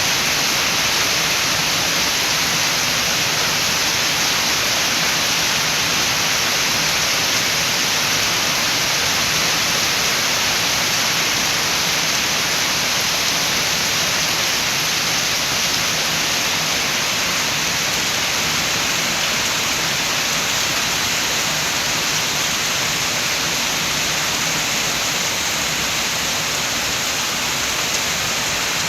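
Rain falling steadily with wind, an even hiss with no single drops standing out.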